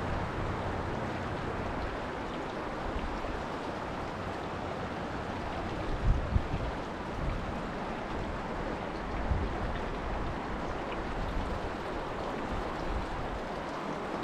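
Steady rush of river water, with wind buffeting the microphone in a few short low bumps partway through.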